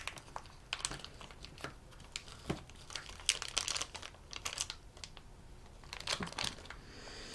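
Small plastic toy pieces and packaging being handled: irregular clicks and taps with bursts of crinkling wrapper, busiest around the middle.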